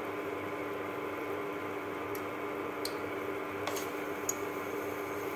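Gram-flour batter frying in hot oil in a steel pot: a steady soft sizzle, with a few faint crackling pops.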